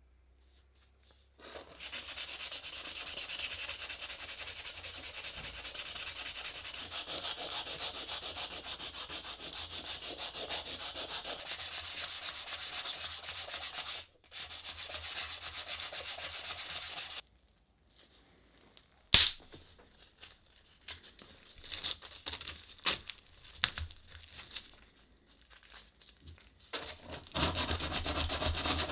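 Hand sanding of a Stanley 75 bullnose plane's cast-iron body with 100-grit aluminium-oxide abrasive paper: steady rubbing strokes for most of the first half. Then a stretch of scattered sharp clicks and knocks as the plane and abrasive are handled, the loudest about two-thirds in, before rubbing resumes louder near the end with the abrasive worked into the plane's mouth.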